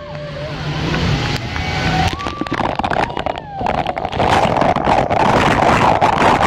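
Passengers whooping and screaming as the boat runs into the heavy spray at the foot of a waterfall. The rush of falling water and spray pouring over the boat builds to a loud, dense roar from about three seconds in, with the screams mixed into it.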